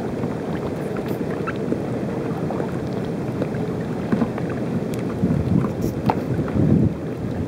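Steady wind rumble on the microphone out on open water, sprinkled with small clicks and pops throughout, with a few louder bumps in the second half.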